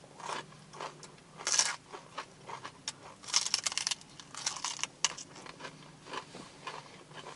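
Raw Brussels sprouts being bitten and chewed by two people: crisp, irregular crunches, the loudest about one and a half seconds in and again a little past the middle.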